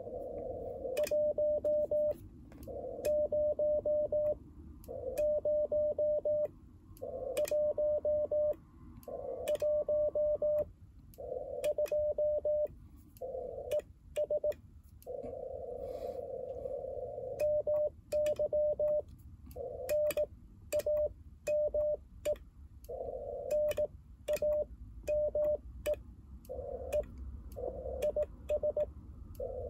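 Morse code sidetone from an Icom IC-705 transceiver: a steady tone of about 600 Hz keyed in dots and dashes at about 18 words per minute, with the key clicking at each stroke. It is the operator's own CW transmission in a contact, sending his location code and name, including a keying slip.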